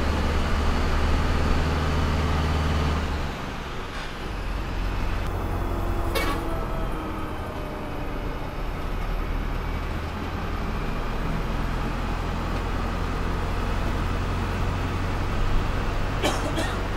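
An air-suspension sleeper bus's engine and road noise, heard from inside the cabin while the bus is moving. The engine note drops about three seconds in, and a few short knocks come through, once about six seconds in and twice in quick succession near the end.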